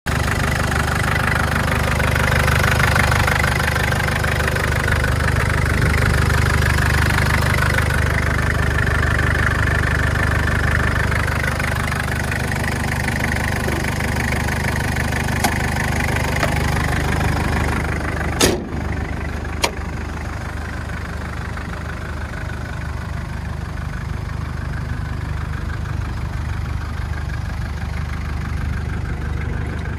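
1998 Hyundai Galloper II's engine idling steadily, heard at the open engine bay. A few sharp clicks come past the middle, and after them the engine sounds softer and farther off.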